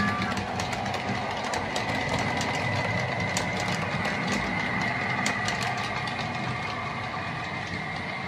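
Model London Underground train running along the track: a steady motor whine over a low hum, with irregular light clicks of the wheels over rail joints and points. The whine is strongest in the middle and fades as the train runs off.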